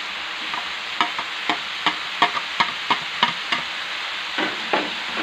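Pork belly and shredded green papaya sizzling in a frying pan. A run of sharp taps, about three a second, comes over it for a couple of seconds, then two more near the end, as the last of the papaya goes into the pan.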